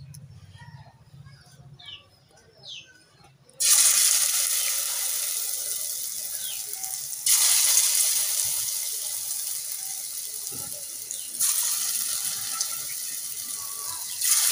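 Hot oil in a kadai sizzling as handfuls of radish fritter batter are dropped in: each portion sets off a sudden loud sizzle that slowly dies down. The first comes after a few quiet seconds, then about every four seconds, three more times.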